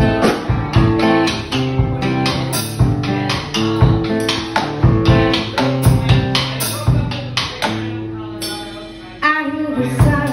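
Live acoustic guitar played with a drum kit keeping a steady beat. The playing eases off briefly and comes back in strongly about nine seconds in.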